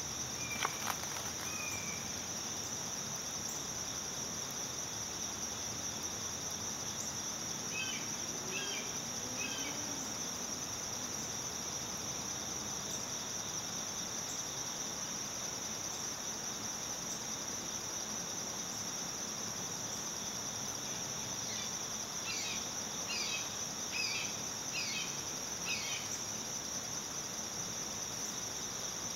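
Steady high-pitched insect chorus, a continuous trill. A couple of sharp clicks come about half a second in, and brief runs of short high chirps come around eight seconds in and again from about twenty-two seconds in.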